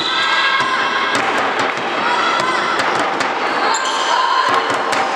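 Indoor handball play: a handball bouncing and knocking on the wooden sports-hall floor again and again, under players' shouts echoing in the hall.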